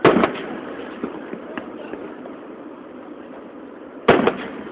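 Fireworks going off: two loud booms about four seconds apart, each followed by a quick run of crackling pops, with a few smaller pops in between.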